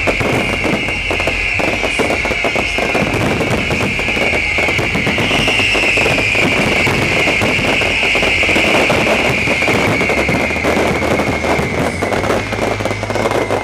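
Fireworks grand finale: a dense, continuous barrage of rapid bangs and crackling, with a shrill high whistling running over it that slowly falls in pitch. The barrage stops suddenly near the end.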